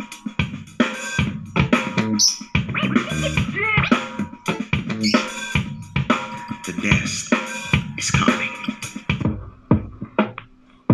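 Music with a strong drum beat playing through an Awei Y371 Bluetooth speaker and picked up by an external microphone. About nine seconds in, the full mix drops away and only sparse beats are left.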